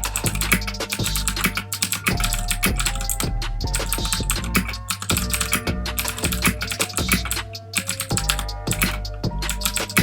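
Rapid, irregular typing on a Ducky One 2 Mini 60% mechanical keyboard with clicky Cherry MX Blue switches, with background music playing steadily.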